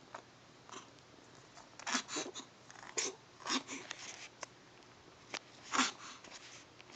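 A kitten sneezing repeatedly: a quick cluster of sneezes about two to four seconds in, then a louder single sneeze near the end.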